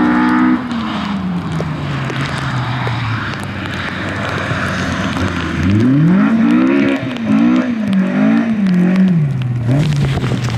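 Rally car engine whose note falls as it slows at the start, then holds steady. From about six seconds in it revs hard and swings up and down several times while the car is stuck nose-down in a roadside ditch.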